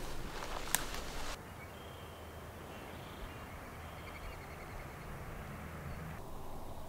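Footsteps swishing through tall dry grass for about the first second and a half, with one sharp snap among them. Then it cuts abruptly to quieter open-air ambience with faint, short, repeated bird calls.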